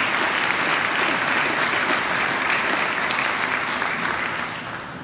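Audience applauding with many hands, steady and then dying away near the end.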